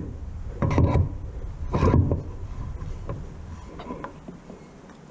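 An outboard propeller being slid back onto its greased prop shaft by hand. Two heavier knocks come about a second apart, then lighter clicks and rubbing as the prop is worked into place.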